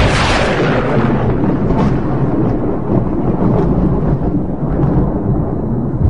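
Thunder: the crack of a close strike fades over the first second or so into a long, rolling rumble, which swells again near the end.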